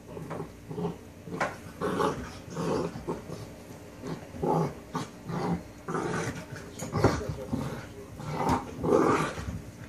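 Puppies growling in play: a run of short growls, about one a second.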